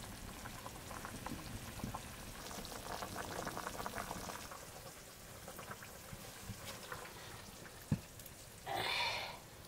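Food bubbling and sizzling in a cooking pot, a soft fine crackle that is busiest a few seconds in. A single sharp knock comes near the end, followed by a short, louder burst of sound just before the end.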